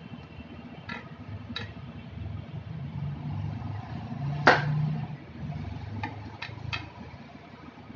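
Knife blade clicking against a stainless steel plate while cutting soft steamed dhokla into pieces: several sharp clicks, the loudest about halfway through, over a low rumble.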